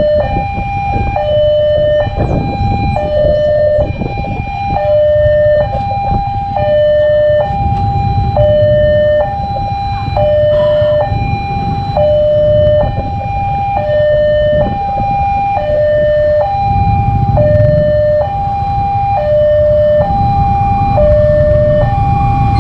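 Railway level-crossing warning alarm sounding a steady two-tone electronic high-low chime, switching tone about every three-quarters of a second, the signal that a train is approaching. A low rumble runs underneath.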